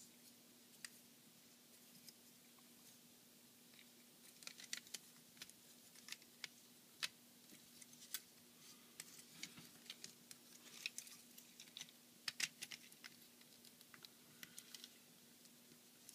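Faint, scattered clicks and snaps of plastic action-figure parts being handled, pulled off and fitted, starting a few seconds in. A faint steady hum runs underneath.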